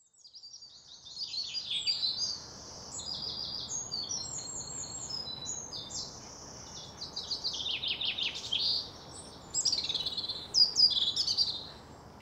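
Several songbirds singing over one another, a busy chorus of high, quick phrases and rapid repeated notes.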